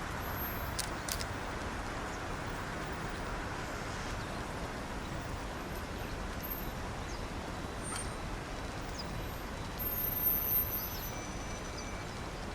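Steady rumble of city traffic, with a few brief, faint high-pitched chirps and ticks and a slight swell about ten seconds in.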